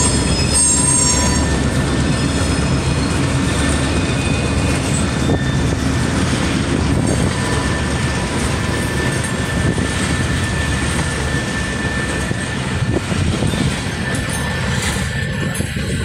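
Freight train of tank cars and covered hoppers rolling past close by: a steady low rumble of wheels on rail, with thin, steady squealing from the wheels over it.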